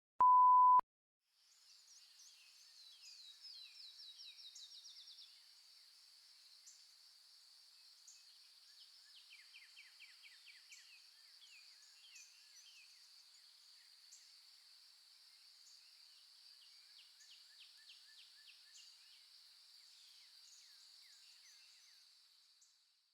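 A short, loud electronic bleep, a single steady high tone, followed by a faint, high-pitched outdoor chorus of chirping insects and birds with rapid trills that fades out near the end.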